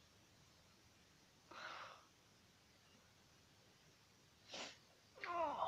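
A child's quiet breath sounds: two short puffs of breath, then a brief vocal sound falling in pitch near the end.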